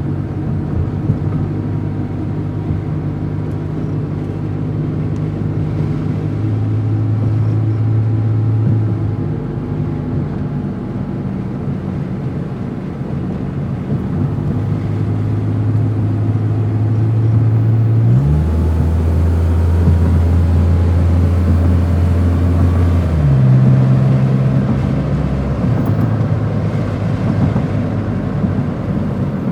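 Car engine running continuously, its low hum shifting pitch in steps several times, with quick glides up and down as the revs change.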